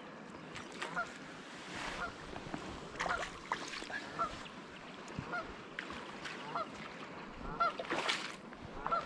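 Waterfowl honking repeatedly, short calls coming every second or so, with a few rustles and splashes of wet grass up close.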